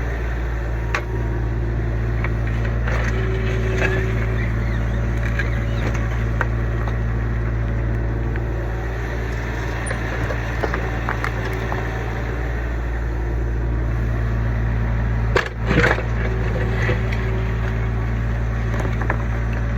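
Kubota U25 mini excavator's diesel engine running steadily under work, with scattered knocks and clanks from the machine digging, and one louder clunk about three-quarters of the way through.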